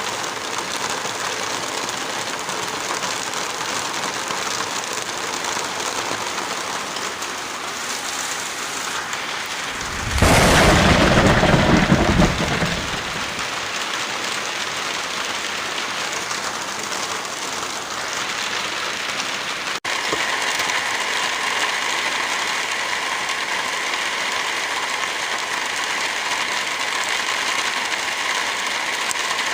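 Heavy rain falling steadily, with a loud, deep thunder crack about ten seconds in that lasts some two seconds. About twenty seconds in the sound drops out for an instant and resumes as a slightly louder, hissier rain.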